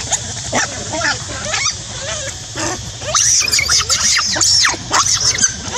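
Monkey screaming loudly in a rapid run of short, shrill calls that rise and fall in pitch, getting louder and more frantic from about three seconds in.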